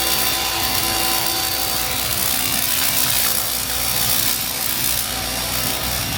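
EGO HPW3200-series cordless pressure washer running and spraying through its turbo nozzle: a steady motor-and-pump whine over the hiss of the spray.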